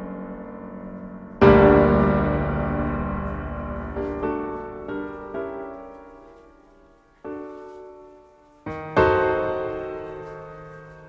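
Background piano music: slow chords struck every few seconds and left to ring and fade.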